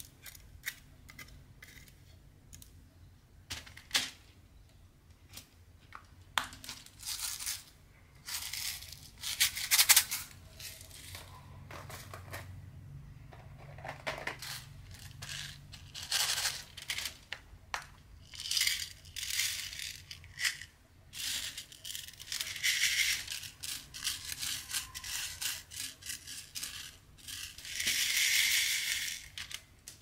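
Crystal diamond-painting drills rattling and clinking in a plastic tray and box, with irregular small clicks and taps as drills are picked up and pressed onto the canvas. Longer rattles come about ten seconds in and again near the end.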